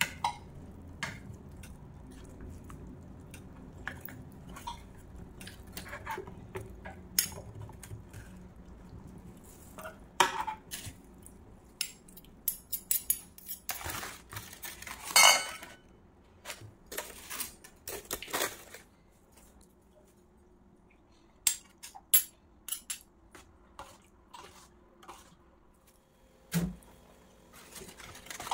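Kitchen clatter: a metal spoon clinking and scraping in a pan, then aluminium foil crinkling and pots and utensils clinking, with a dull knock near the end.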